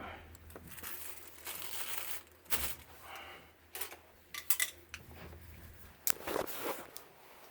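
Irregular rustling and crinkling handling noises, like plastic or tape being handled, with a few short sharp clicks.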